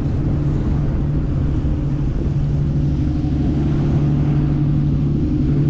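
Steady engine drone holding one unchanging pitch, over a rough low rumble of wind on the microphone.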